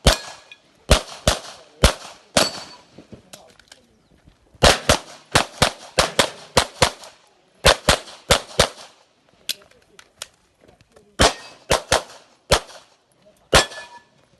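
Taurus TS9 9mm pistol firing fast strings of shots, two to five shots about a third of a second apart, with short pauses between strings, about twenty shots in all.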